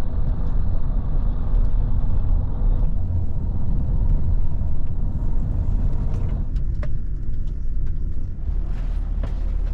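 Steady low rumble of a double-decker coach on the move, heard from inside its upper deck. A few light clicks and rattles come past the middle.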